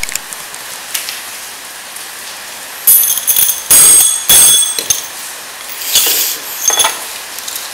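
Heavy iron nunchaku, its sticks and thick chain clinking and knocking together: a few sharp metallic clanks with a high ringing after each, starting about three seconds in.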